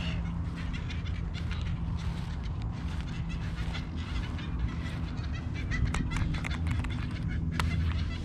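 Birds calling, with a steady low hum underneath and two sharp clicks near the end.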